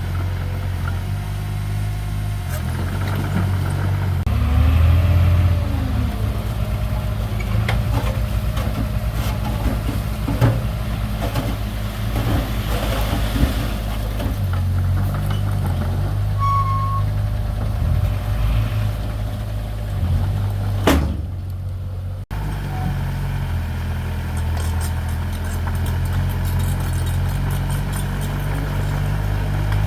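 Diesel engine of heavy earthmoving machinery running under changing load, with scattered clanks and knocks. It drops out briefly about three-quarters of the way through, then carries on.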